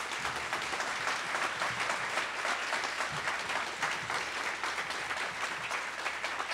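Audience applauding steadily, many hands clapping together, in response to a speech's punchline.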